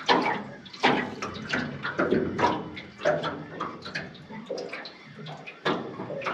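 Water lapping and slapping against the hull of an aluminum fishing boat in irregular splashes.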